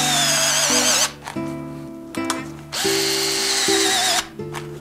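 Handheld pneumatic driver running in two bursts of a second or so each, with a whine that wavers in pitch, as it drives a brake bolt into a cantilever brake mount. Background music plays under it.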